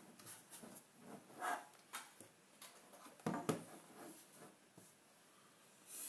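Hands handling a plastic digital photo frame on a desk: scattered light clicks and rubbing, with two louder knocks close together about three and a half seconds in.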